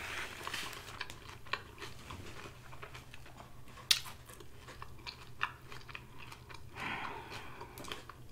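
Close-up chewing of crisp lettuce salad: soft wet crunches with scattered sharp clicks, one sharper click about four seconds in.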